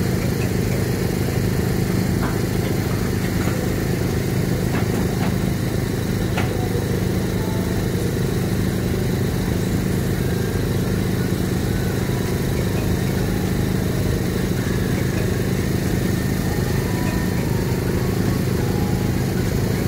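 Komatsu long-reach excavator's diesel engine running steadily under digging load, with a constant low hum.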